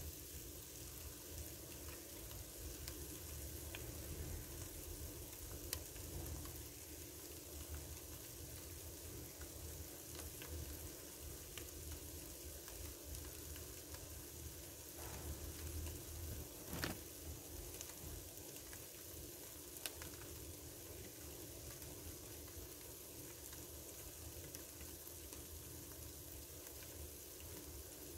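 Salmon fillet sizzling as it cooks: a steady crackling hiss with an occasional sharper pop.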